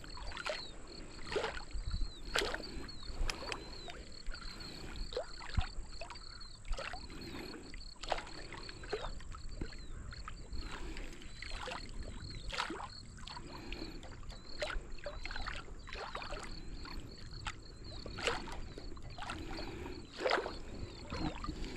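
Lake water lapping, with irregular light slaps and splashes every half second to second or so.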